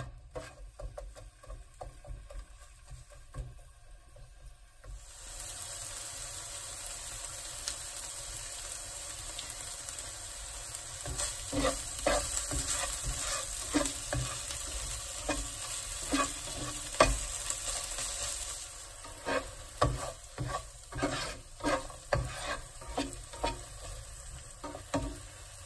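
Chopped onion, ginger-garlic paste and green chili sizzling in hot oil in a non-stick frying pan, stirred with a spatula that knocks and scrapes against the pan. The sizzle grows louder about five seconds in and eases off near the end, while the spatula knocks go on.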